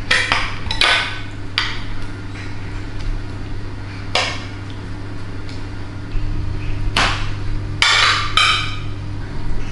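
Metal spoon knocking and scraping against a glass dish while scooping out wet batter: a handful of sharp clinks spread apart, with a quick run of clinks that ring briefly near the end.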